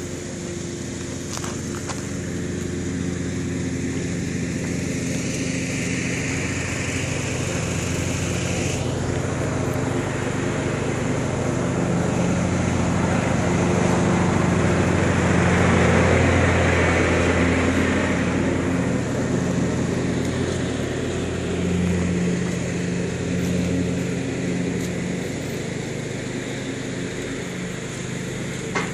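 Car engine idling steadily, getting somewhat louder towards the middle.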